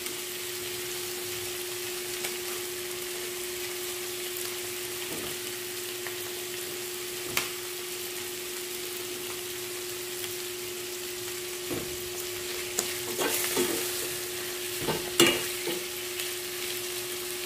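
Milkfish pieces cooking in coconut milk in a pan on a gas burner, giving a steady sizzling hiss over a steady hum. A spoon clicks against the pan now and then, most often in the second half.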